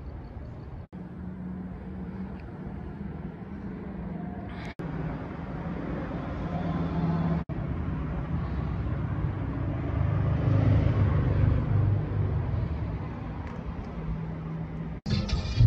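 Street traffic noise: a steady low rumble of road vehicles that swells louder around the middle, broken by a few brief dropouts. Music comes in just before the end.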